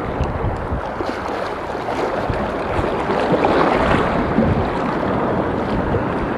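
Shallow sea water washing and lapping over a reef flat, with wind buffeting the microphone, as a steady rushing noise without pauses.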